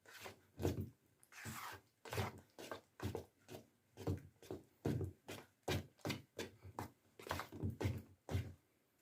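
A thick, sticky glue-and-colour slime base being stirred by hand in a container, a string of short wet strokes about two or three a second.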